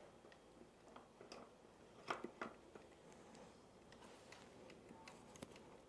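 Mostly near silence, with a few faint clicks and small knocks, the two clearest about two seconds in, as a bicycle front wheel's axle is guided into the front fork dropouts.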